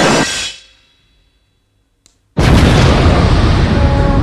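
Explosion sound effect: the last of one blast dies away in the first half second, then after about a second and a half of silence a second loud explosion starts suddenly and keeps going.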